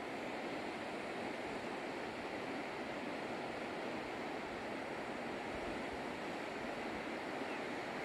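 Steady, unbroken rushing noise with a water-like sound, like surf or fast-flowing water, with no changes in level.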